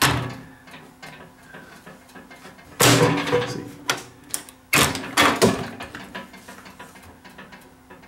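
Panasonic inverter microwave oven door being shut and opened, its latch hooks clicking the door interlock switches, which are tripping as they should. Sharp clunks come at the very start, about three seconds in and again near five seconds, with a small click between the last two.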